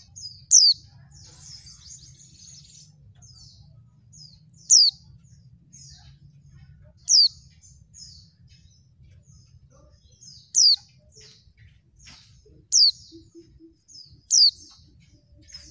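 Female white-eye (pleci) calling: six sharp, loud notes that each slide quickly downward, spaced a couple of seconds apart, with softer twittering chirps in between.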